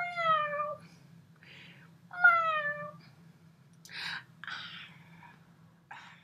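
A woman imitating a cat, meowing twice, each meow falling in pitch, followed by a few short breathy sounds.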